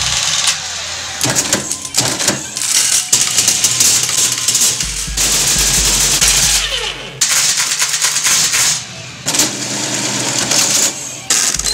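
Mechanical calculating machine running through a calculation: a fast, loud clatter of clicks from its gears and carriage, in runs broken by brief pauses, with a low hum under parts of it.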